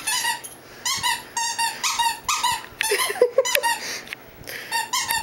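A squeaky dog toy squeaking over and over in short bursts of quick squeaks, about eight bursts, while a puppy bites at it.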